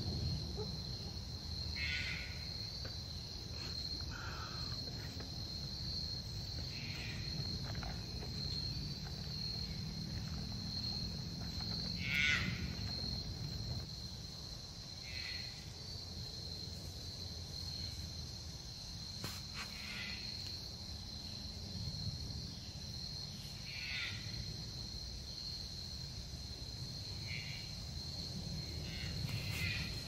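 Steady, high-pitched drone of an insect chorus, with short chirping calls every few seconds and a low rumble underneath.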